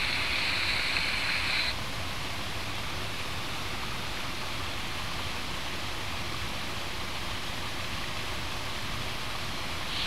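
Steady rush of water from a small creek waterfall. For the first second and a half a high, steady buzz sits over it, then stops abruptly.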